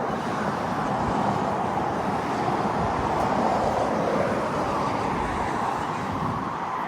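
Road traffic at the intersection: steady tyre and engine noise from passing cars, growing a little louder around the middle.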